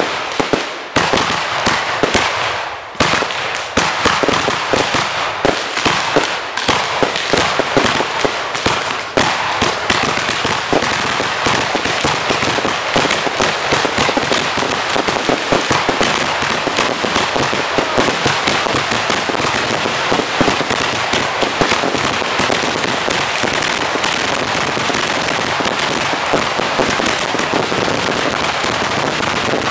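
Aerial fireworks going off: sharp separate bangs in the first few seconds, then a dense, continuous crackling of many small reports.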